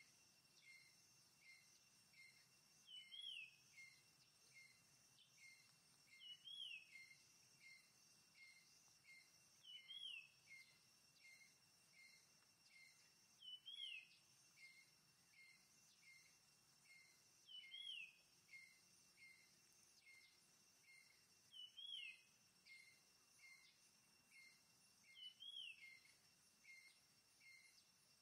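Faint forest ambience: a bird call, a quick falling whistle followed by a run of short chirps, repeating evenly about every three and a half to four seconds over a steady high insect drone.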